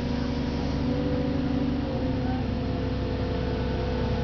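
An engine running steadily, its pitch dropping slightly about two seconds in.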